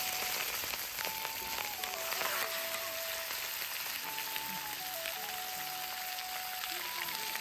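Raw chicken pieces sizzling and frying in hot oil in a karahi over a wood fire, a steady dense hiss that starts as the meat hits the oil. Background music with a simple melody plays underneath.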